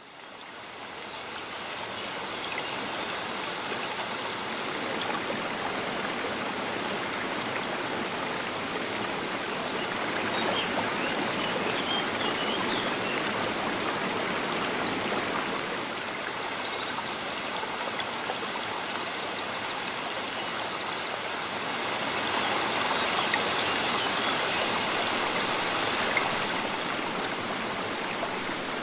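River water flowing and washing against the bank, a steady rushing that fades in at the start and swells louder twice, about ten and twenty-two seconds in. A few short, high bird chirps and trills come through around the middle.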